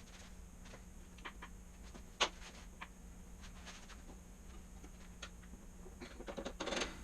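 Scattered light metallic clicks and taps from the internal parts of a 4L80E automatic transmission being handled during teardown, with one sharper knock about two seconds in and a quick run of clicks near the end.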